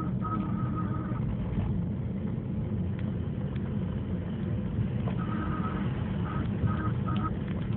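Fiat Palio ELX 1.4 with a steady low rumble and a thin, high whine that comes and goes, dropping out about a second in and returning in short broken pieces after about five seconds. The whine is the unexplained noise from the front passenger-side wheel that several mechanics have failed to trace.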